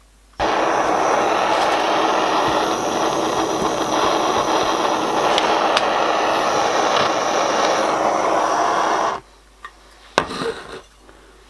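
Handheld gas torch burning with a steady rushing noise, switched on about half a second in and shut off after roughly nine seconds. It is heating a brass axle box to flow flux-cored solder. A couple of sharp clicks follow near the end.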